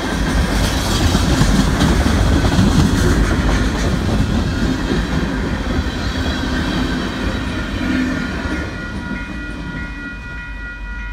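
Freight train of gondola cars rolling past close by, the steel wheels rumbling and clicking over the rail joints, then fading as the end of the train moves away. Near the end, as the rumble drops, the level-crossing warning bell ringing becomes audible.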